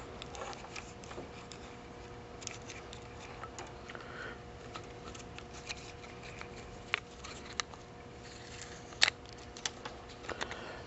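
Scattered small clicks, taps and rustles of wires and plastic parts being handled while a cable is fed through. The sharpest click comes about nine seconds in, with a few more near the end, over a faint steady hum.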